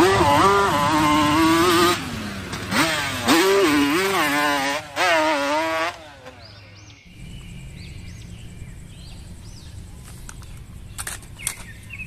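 Quad bike (ATV) engine revving hard, its pitch rising and falling with the throttle and cutting out briefly a few times, for about six seconds. It then drops away to a quiet background.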